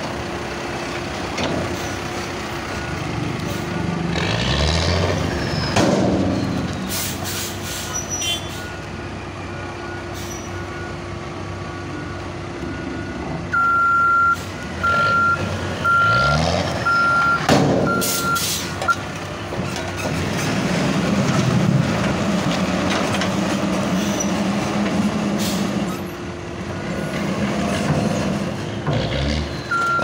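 Cat 416F backhoe loader's diesel engine running under load, revving up twice, with a few sharp knocks. A reversing alarm sounds a run of about five evenly spaced beeps around the middle, with fainter beeps elsewhere.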